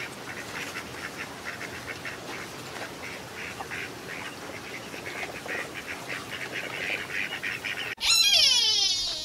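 Whistling ducks calling: a steady run of short, high whistled notes, several a second. About eight seconds in, a louder, high-pitched call with sliding, falling pitch cuts in.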